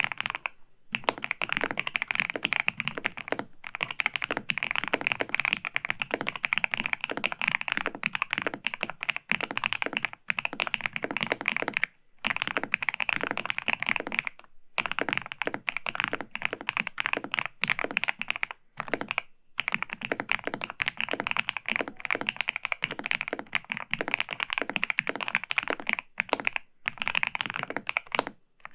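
Continuous typing on a Dark Project KD87 NUM mechanical keyboard with lubricated Dark Project g3ms Moonstone switches, CSA PBT keycaps, a polycarbonate plate and Poron foam damping. The keystrokes come in long, dense runs broken by short pauses every few seconds.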